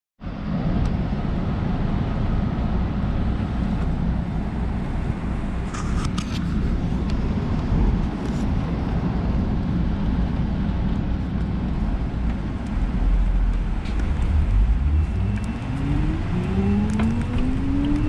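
Steady low rumble of a bus's motor and tyres heard inside the cabin while driving. A few short rattles come through, and a motor whine rises steadily in pitch near the end as the bus speeds up.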